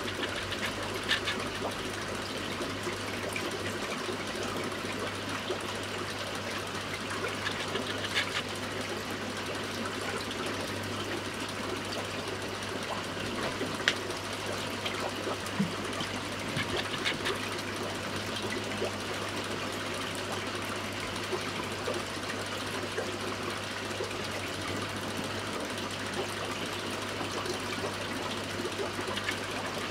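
Aquarium pump running steadily with a low hum and the rush of moving water, broken by a few faint ticks.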